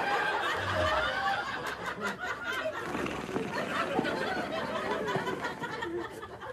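A person giggling quietly, in short broken bursts of stifled laughter.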